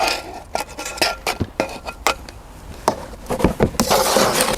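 Clinks and knocks of a plant container and potting gear being handled, some with a short ringing note, then a dense rustle of potting compost for about a second near the end.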